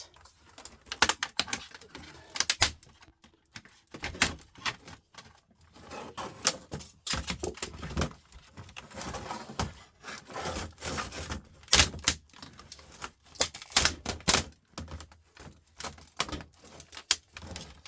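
Plastic laptop housing being pried and broken apart: irregular sharp clicks, cracks and rattles of plastic parts, some louder snaps among them.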